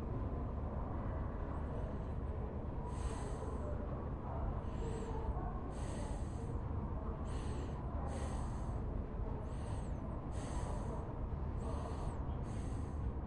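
Library ambience: a steady low rumble with short, high, scratchy strokes about once a second, like a quill pen writing on parchment.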